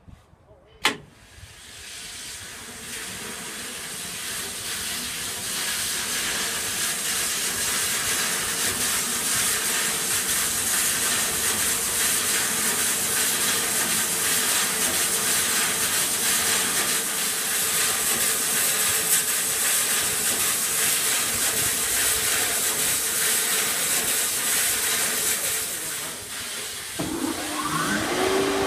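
A switch clicks at the control cabinet, and the electric motor driving a belt-driven block band saw spins the saw up over a few seconds to a steady hissing whir. The saw then runs without cutting. Near the end a second tone glides up and settles into a steady hum.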